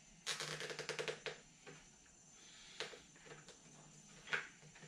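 A plastic zip tie being pulled tight through its ratchet: a rapid run of clicks lasting about a second, followed later by a couple of single clicks.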